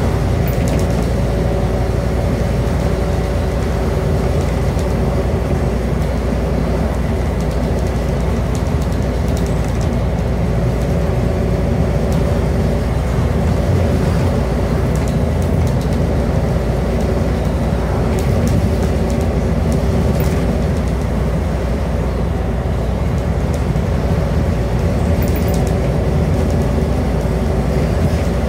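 Scania N230UD double-decker bus with its Scania DC09 nine-litre diesel, heard from a seat inside the saloon while cruising at a steady speed: an even engine drone over road and tyre noise, with a few light rattles from the body.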